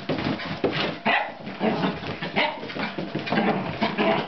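Small black puppy barking repeatedly in short, irregular barks.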